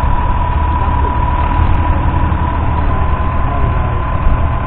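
Massey Ferguson 6170's 6.0-litre six-cylinder diesel engine running steadily under load, pulling a two-furrow reversible plough through stubble. A low rumble is heard with a constant high whine over it.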